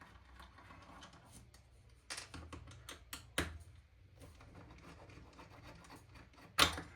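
Small parts of an airsoft rifle's hop-up unit being worked on by hand: faint scraping and rubbing with several sharp clicks, the loudest near the end.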